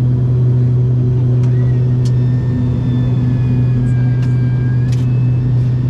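Turboprop aircraft heard from inside the cabin during takeoff, a loud steady low propeller drone with a fainter high whine that drifts slowly lower. A few light clicks sound over it.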